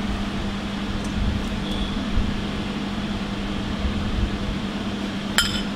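Steady hum of kitchen machinery with a constant low drone. Two sharp clinks near the end.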